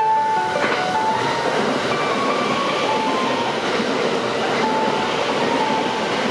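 Limited express electric train passing through a station at speed: a steady, loud rush of wheel and running noise that comes in sharply just under a second in. Faint music continues underneath.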